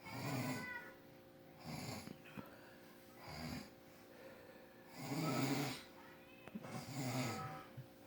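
A man snoring in his sleep: five rough snores about a second and a half apart, the loudest about five seconds in.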